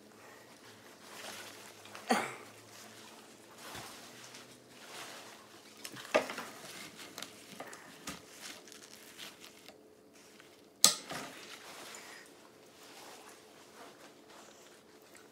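Handling noise of a landing net: the mesh rustling and the metal hoop and clip clicking and knocking as they are worked by hand, with three sharper knocks, the loudest about two-thirds of the way through.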